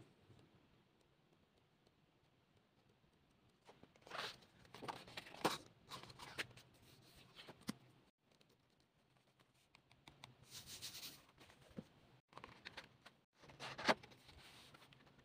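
A photobook from an album being paged through and handled: after a few quiet seconds, bursts of paper rustling and pages sliding, with a sharp tap near the end.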